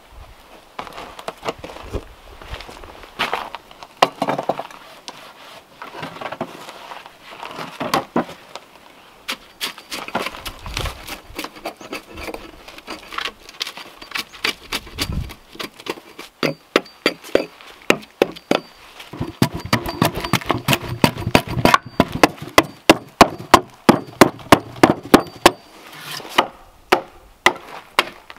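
An axe shaving and chopping a block of cherry wood: uneven scraping cuts and knocks at first, then, from about halfway in, a quick steady run of short sharp chops about two a second.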